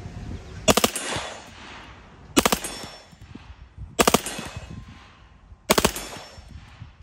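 A .45 ACP Reising Model 50 submachine gun firing on full auto: four short bursts of a few shots each, about a second and a half apart, each followed by a short echo.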